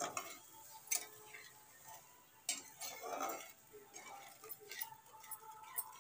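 Spatula stirring masala paste in a metal kadai: faint scraping, with scattered sharp clicks where the spatula knocks the pan.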